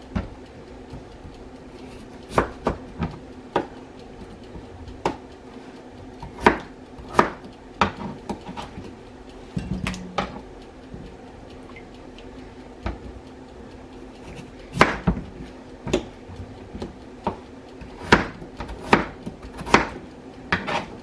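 Kitchen knife cutting raw peeled potatoes into chunks on a plastic cutting board: irregular sharp knocks of the blade meeting the board, some in quick runs of two or three, over a faint steady hum.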